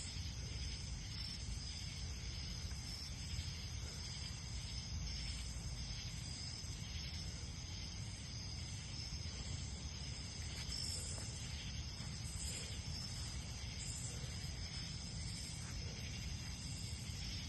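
Steady outdoor ambience: insects chirring in a continuous high drone over a low, even rumble of river water or wind.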